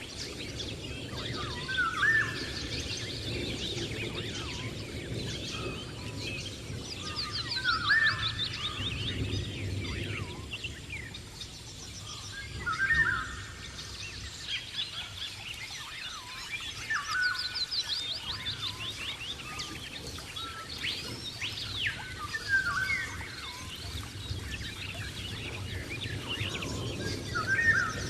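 Rainforest ambience of birds calling. One short call comes back about every five seconds, over quicker, higher chirping trills and a steady low background rumble.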